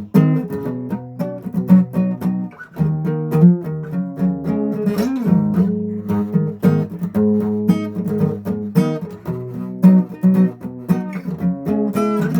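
Acoustic guitar playing, with frequent plucked notes over held chords.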